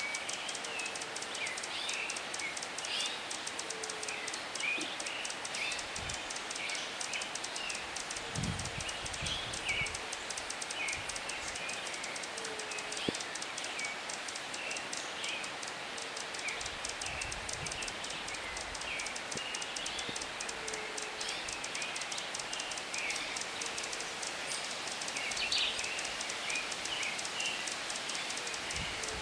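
Forest ambience: many short bird chirps throughout, over a steady high buzz, with a low note repeated about every two seconds. A brief low rumble comes about 8 seconds in and again near 17 seconds.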